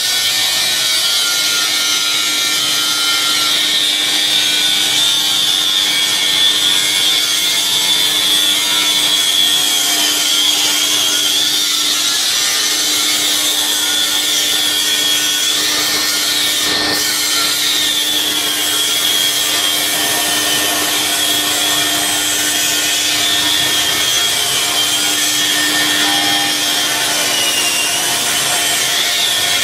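Homemade flywheel generator rig running: an electric motor belt-driving a heavy flywheel and pulleys. It makes a steady rasping, rubbing noise with a high whine that wavers slightly in pitch and a low steady hum, and there is a single click about halfway through.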